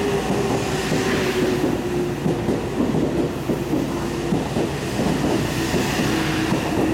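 Meitetsu 2200 series electric train pulling into a station, its wheels clicking over the rail joints under a steady whine that sinks slowly in pitch as the train slows.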